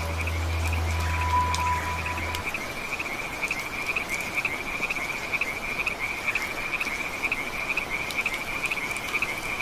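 Frogs calling in a steady pulsing chorus, about five pulses a second, over the even hiss of rain on leaves, with a few sharp drop ticks. A low held music note ends about two seconds in.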